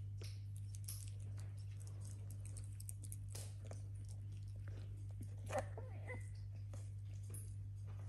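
Fennec fox chewing and licking soft food from a bowl: a scatter of small wet clicks and smacks over a steady low hum, with one brief louder sound about five and a half seconds in.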